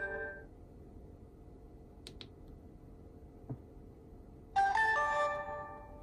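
DJI Osmo Action camera's start-up chime near the end: a short electronic jingle of several ringing notes that fades out after about a second. At the start the last of its shutdown tone dies away, and in between there are only a couple of faint clicks and a soft knock.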